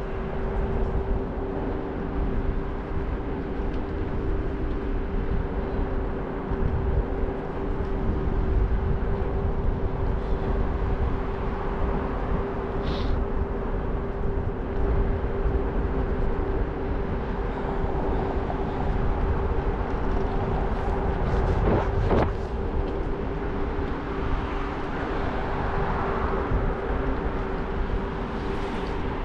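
Scooter in motion: a steady whine holds one pitch over low rumbling ride noise. There is a single sharp knock about three quarters of the way through.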